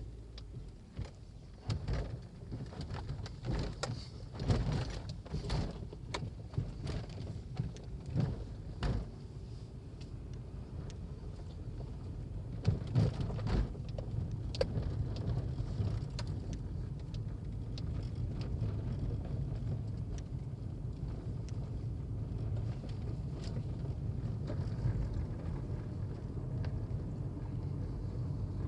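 An engine running, a steady low rumble that grows louder after about ten seconds, with scattered knocks and clatter through the first half.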